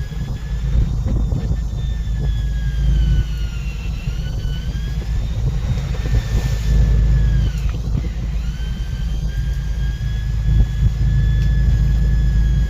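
Machinery on a fishing boat at sea: a heavy low engine rumble, with a high motor whine that sags in pitch and recovers a few times, as a motor does under changing load.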